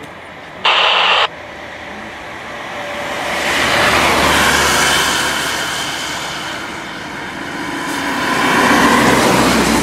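Two cars pass close by on the road one after the other, each rising and then fading away. Under a second in there is a short, loud burst of noise.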